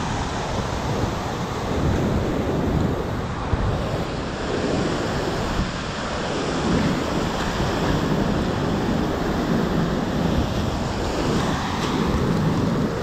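Glacial meltwater torrent pouring out from under the ice face, a steady rush of water, with wind buffeting the microphone.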